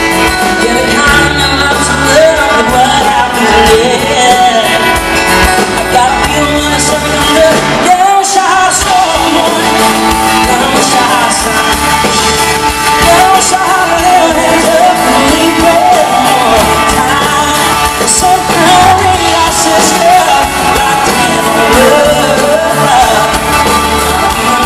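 Live band performing a loud, guitar-driven country-pop rock song, with a voice singing over the band.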